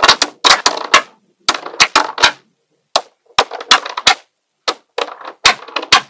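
Small neodymium magnetic balls clicking and clacking together as they are snapped onto a block of magnet balls. The clicks come in irregular clusters of sharp clacks, with short pauses between clusters.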